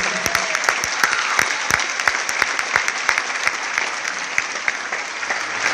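Concert audience applauding: many hands clapping densely, slowly easing off.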